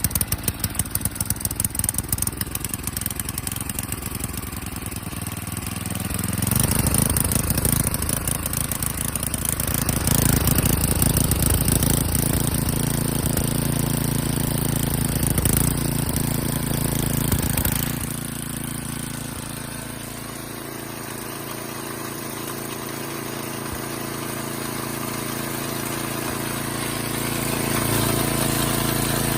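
Single-cylinder 8 hp Tecumseh snowblower engine, newly fitted to a John Deere 524 rototiller, running steadily. It speeds up about six seconds in, settles back down around eighteen seconds, and picks up again near the end.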